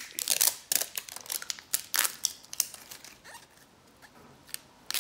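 Foil-and-plastic wrapper of an LOL Surprise ball crinkling and tearing as it is peeled off by hand: quick crackles, busiest in the first half, a lull, then a few more near the end.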